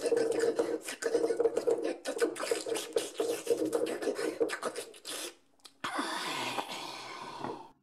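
A person making slurping and lapping drinking noises with the mouth to play a bear drinking from a cup: rapid wet smacking clicks over a voiced hum. After a short break comes a breathy hiss of about two seconds.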